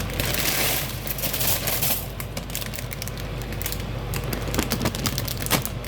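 A plastic bag of dry egg noodles being handled: crinkling and a busy run of small clicks and rattles. A louder rustle lasts about a second near the start.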